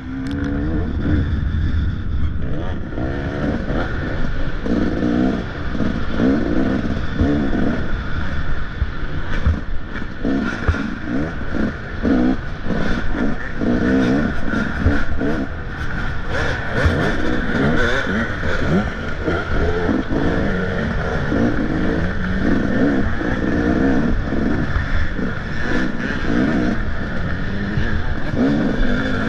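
Motocross dirt bike engine revving hard and backing off again and again, its pitch rising and falling every second or two as the rider works through the track.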